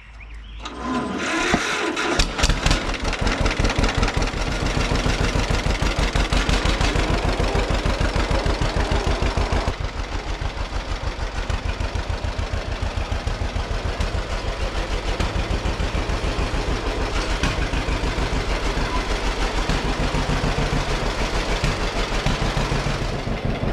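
John Deere 50 tractor's two-cylinder engine starting, catching about two seconds in. It then runs with an even, steady beat of firing pulses, a little quieter from about ten seconds in.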